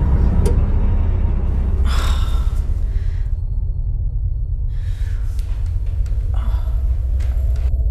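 A woman gasping, three sharp breaths a couple of seconds apart, over a steady deep rumbling drone.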